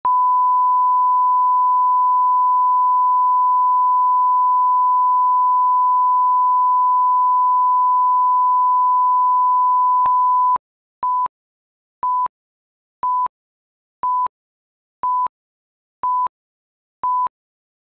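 A pure 1 kHz reference tone held steady for about ten seconds, then short beeps at the same pitch once a second, seven of them: a broadcast line-up tone followed by a countdown.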